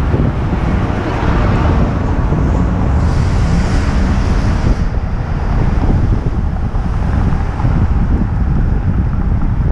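Wind buffeting a helmet-mounted GoPro's microphone while cycling, a loud steady rumble, with city traffic under it. A higher hiss rises about three seconds in and lasts nearly two seconds.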